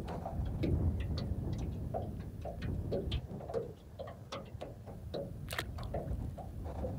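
Fishing reel clicking at about three clicks a second as line is reeled in, with one louder click a little past the middle. Low wind rumble on the microphone sits underneath.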